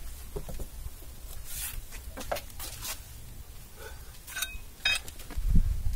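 A few light clicks, clinks and scrapes, as of refractory bricks and hand tools being handled on the oven base, over a steady low rumble.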